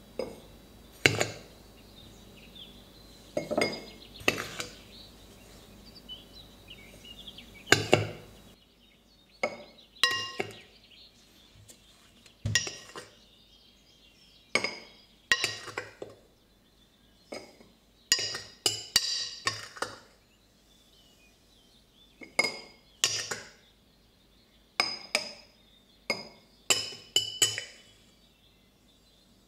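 Kitchen utensils and dishes clinking and knocking: a string of separate, irregular sharp strikes, the later ones ringing briefly like glass or crockery.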